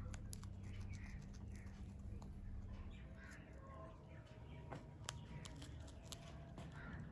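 Alexandrine parrot making faint soft chirps, with a few small clicks scattered through.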